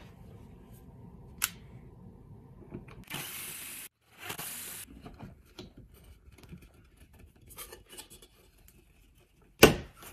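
Handling sounds of a 3D-printed PLA shelf bracket against a wall: small clicks and taps, two short scrapes about three and four seconds in, and a sharp knock near the end as the bracket seats onto its wall screws.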